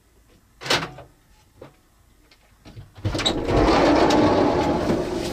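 A camper van's sliding side door being opened: a click under a second in, then about three seconds in a loud rolling rattle as the door slides back along its runner for about two seconds, fading away.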